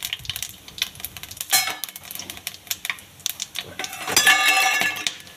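Sharp clicks and clinks of a steel serving bowl and whole spices (cloves and black peppercorns) going into hot mustard oil in a kadai, with a ringing metallic clink about four seconds in.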